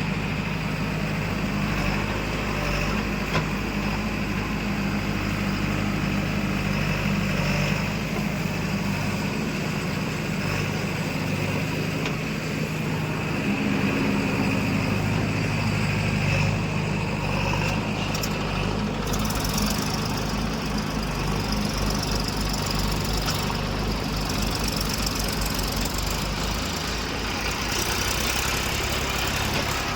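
Diesel engine of heavy machinery running steadily at an even pitch, with no clear change in speed.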